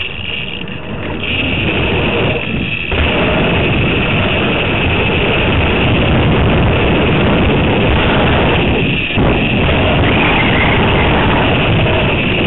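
Wind rushing over a head-mounted camera's microphone, with BMX tyres rolling on concrete: a loud, steady rush that builds over the first few seconds and dips briefly twice.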